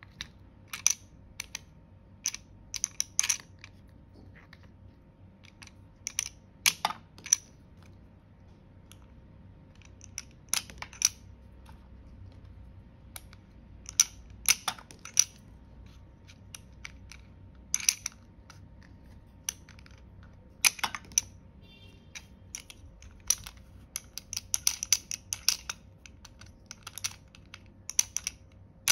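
Irregular sharp clicks and clacks of hard plastic, in small clusters: a toy toilet target game being handled, its small plastic poop pieces set onto plastic catapult launchers and the launchers pressed.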